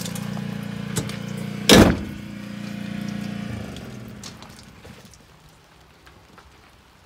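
Polaris Ranger XP 1000's twin-cylinder engine idling steadily, its hum fading out about halfway through. A small click about a second in, then a single loud thump just before two seconds.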